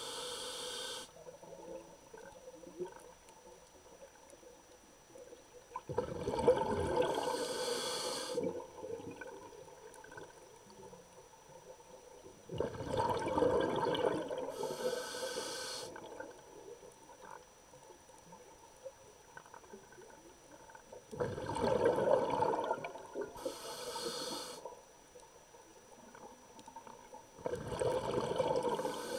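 Scuba diver breathing through a regulator underwater: a burst of exhaled bubbles rumbling and gurgling for about two seconds, about every seven seconds. Each burst ends in a short high hiss.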